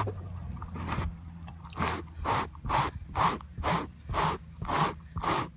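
A handheld pet-hair remover rubbed back and forth over sandy car-seat upholstery: brisk scraping strokes, about two a second, starting a couple of seconds in.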